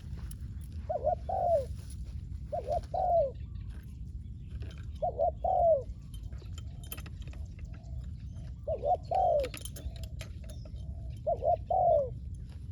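Spotted dove cooing: five phrases of two or three short, falling coos, one phrase every two to three seconds, with fainter coos between the phrases late on. A low steady rumble runs underneath.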